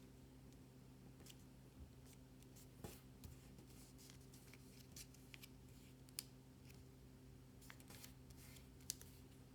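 Faint handling of a square of origami paper: a few short crisp ticks and rustles as it is creased and folded, the sharpest about six and nine seconds in, over a low steady hum.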